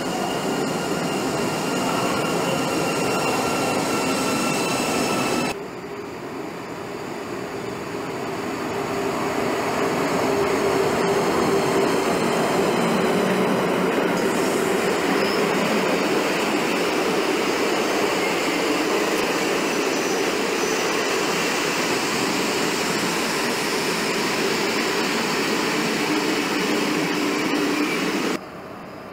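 ÖBB Class 1042 electric locomotive passing close with a steady high whine. After a cut, a train of passenger coaches rolls past on the rails, the wheel and rail noise building over a few seconds and then holding steady.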